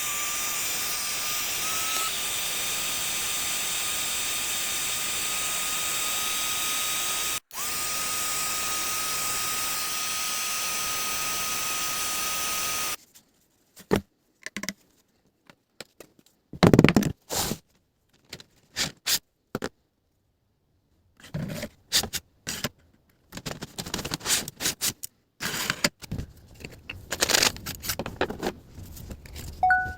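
A small power tool runs at a steady whine for about thirteen seconds, cutting out for a moment about halfway through. Then come scattered clicks, knocks and scrapes of workshop handling.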